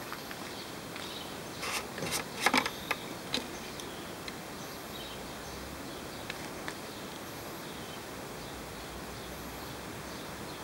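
Plastic clicks and knocks of a VW Sharan's power steering fluid reservoir cap being unscrewed and its dipstick drawn out. A quick cluster comes about two seconds in and two light ticks follow a few seconds later, over a steady low hiss.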